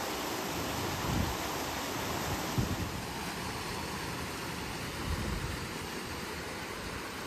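Brook water rushing over boulders, a steady hiss that eases a little after about three seconds. Wind buffets the microphone now and then.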